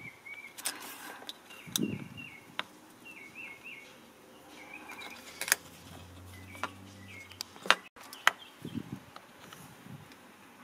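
A small bird chirping in faint groups of short, quick notes, with scattered sharp clicks and taps from soldering work on a small circuit board, the loudest two about halfway through and near the end.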